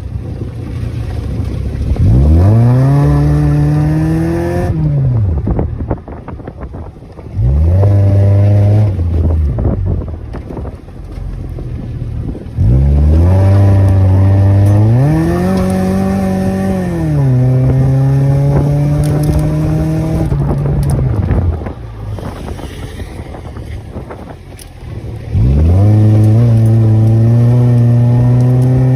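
Honda Orthia's exhaust and muffler as the engine is revved four times, each time rising in pitch, sometimes held steady for a few seconds, then dropping back to a quieter idle.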